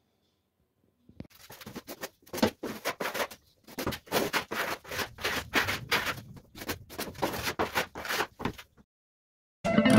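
A quick, irregular series of short scraping strokes, about two to three a second, stopping shortly before music begins near the end.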